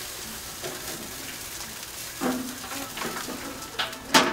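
Steak-and-onion kabobs sizzling on a gas grill, a steady high hiss. Near the end there is a single sharp knock from the grill lid.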